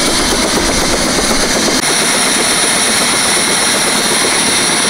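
Turbine helicopter running on the pad: a loud, steady roar with a thin high whine that grows stronger about two seconds in.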